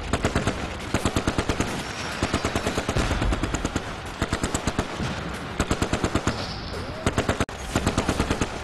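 Machine-gun fire in repeated bursts of rapid shots, about ten a second, with short pauses between the bursts.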